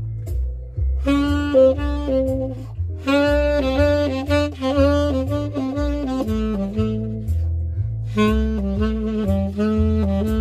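Tenor saxophone improvising jazz-blues phrases over a backing track with a steady walking bass line. The sax comes in about a second in, plays a long run from about three seconds, pauses briefly, and starts another phrase near the end.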